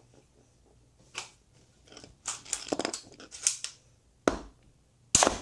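Clicks and rattles of a BB gun being handled and worked while being loaded, in a scattered series with a busier stretch in the middle and a sharp knock near the end as the loudest sound.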